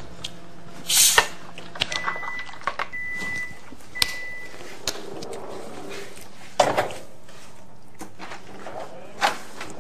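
A few sharp knocks and clatter, with three short electronic beeps in a row about two seconds in.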